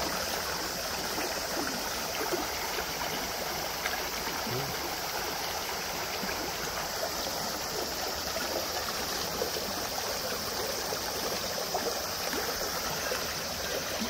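Shallow mountain stream running over boulders and pebbles, a steady, even sound of flowing water.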